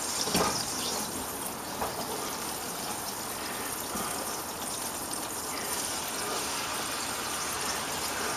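Hot olive oil, butter and pan juices sizzling steadily in a stainless steel frying pan, with a few faint small crackles; partway through, a raw chicken breast fillet is laid in to be sealed.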